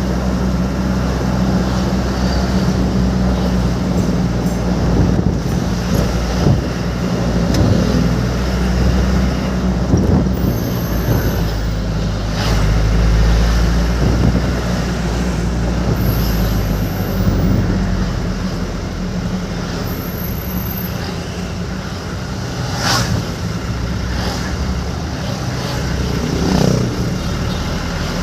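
A motor vehicle's engine humming steadily under road noise while driving, with a few brief sharp knocks, the loudest about three-quarters of the way through.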